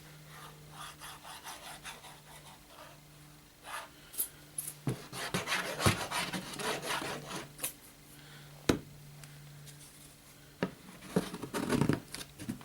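MDF and plastic parts being handled and rubbed together during gluing, with scraping and several sharp knocks as wood is set in place. A steady low hum runs underneath.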